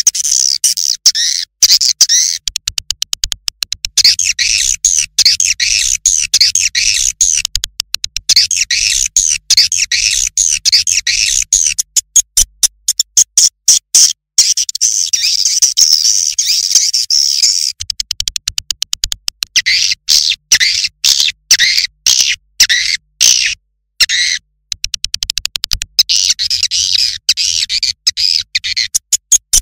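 Recorded edible-nest swiftlet calls: dense, continuous high twittering chirps mixed with rapid runs of sharp clicks, with a couple of brief dropouts. This is a swiftlet lure recording of the kind played to draw swiftlets into a nest house.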